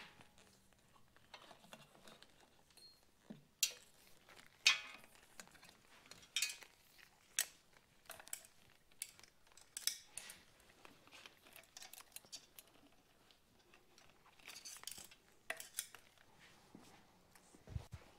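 Scattered light clicks and small metallic clinks from hands fitting a handlebar switch housing and its wiring onto a motorcycle's handlebar, the sharpest couple about four seconds in. A low thump near the end.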